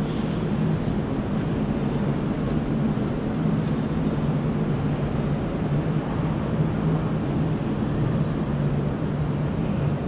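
Steady low drone of a building's air-handling system, an even rushing noise with a constant low hum.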